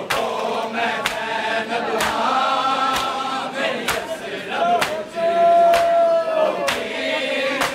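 Male voices chanting a Punjabi-language noha (Muharram lament) in unison, with one voice holding a long, slowly falling note past the middle. Sharp slaps of matam (mourners beating their chests) keep an even beat of about one a second underneath.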